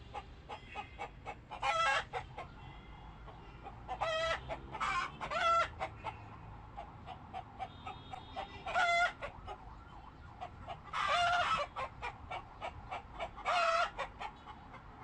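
Chickens calling: loud squawking calls every second or two, with short fainter clucks between.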